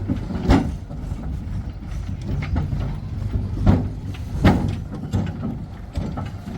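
Heavy diesel engine running steadily, with several sharp metallic knocks or clanks over it.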